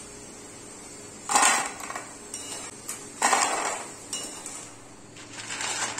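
Crispy double-fried potato fingers tipped from a steel ladle onto a ceramic plate: two loud clattering dumps, about a second in and again about three seconds in, with lighter clinks of the ladle in between. Near the end a dry crackling starts as the crisp fries are handled.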